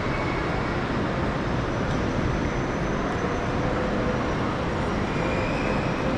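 Steady ambient noise of a large railway station: an even rush with faint steady hums that come and go.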